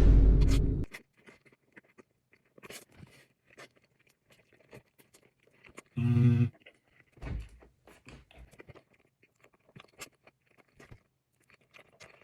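A person chewing a huge mouthful of cream cheese bagel: faint wet clicks and smacks from the mouth. A loud burst lasting about a second comes at the very start, and a short loud hum about halfway through.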